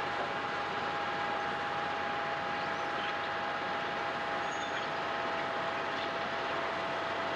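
Heavy machinery running steadily: an even mechanical noise with two steady whining tones over it, unchanging throughout.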